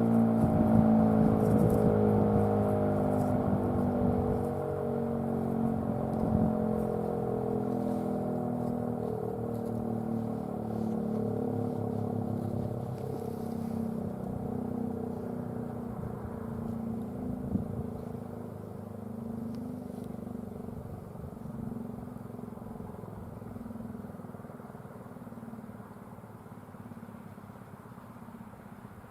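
ACA P-15 outdoor warning siren winding down at the end of its alert signal: its tone slowly falls in pitch and fades away.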